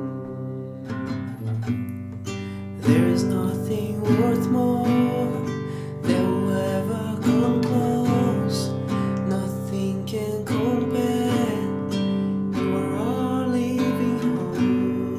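A man singing a worship song while strumming a nylon-string classical guitar, with the echo of a tiled bathroom; the guitar plays alone at first and the voice comes in about three seconds in.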